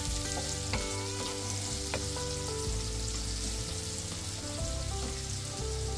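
Chopped onions sizzling steadily in hot oil in a non-stick frying pan, stirred with a wooden spoon that knocks lightly against the pan a couple of times. Soft background music with long held notes plays underneath.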